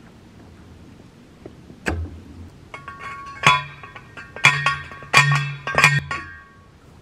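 Manual T-post driver striking a steel T-post: a light knock, then about five sharp metallic clanks that ring on after each blow, coming faster toward the end.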